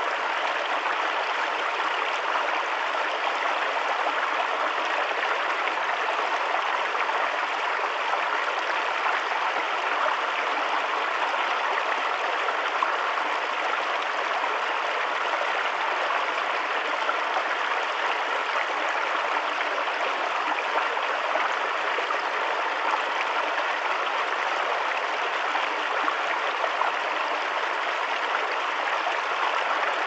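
Shallow rocky stream running over a small cascade between stones and logs: a steady, even rush of water.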